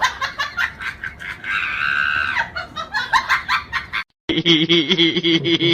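An animal's rapid clucking calls with one drawn-out high call, breaking off about four seconds in, when a different sound with a steady low pitch starts.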